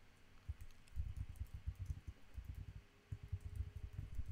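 Typing on a computer keyboard: a quick run of keystrokes with a short pause about three seconds in.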